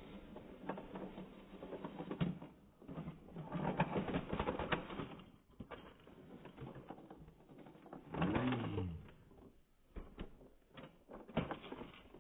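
Plastic toy bus and tram being handled by hand, rattling and clattering in irregular clicks that are busiest a few seconds in. A short pitched hum sounds about eight seconds in.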